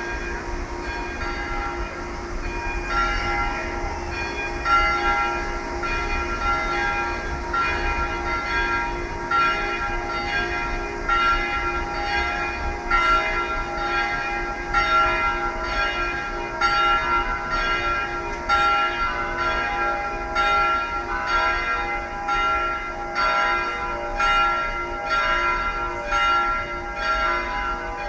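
Church bells ringing in a bell tower: several bells of different pitch struck over and over, about one stroke a second, each stroke ringing on into the next.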